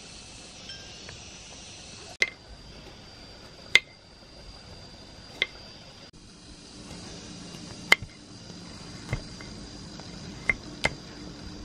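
A series of sharp knocks or clinks, each with a short ring, seven of them spaced a second or so apart and unevenly, over a faint steady high whine.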